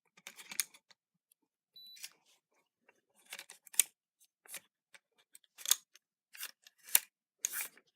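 Irregular metallic clicks and clacks from a Schlage BE365 keypad deadbolt being worked by hand: its lock mechanism and thumb turn clicking. There is a short faint high beep about two seconds in.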